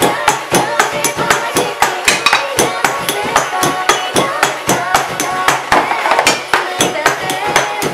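Drumming on household trash (cardboard snack boxes, cans and bottles) with a pair of sticks, in quick, steady hits several times a second, played along to a K-pop song's chorus with singing.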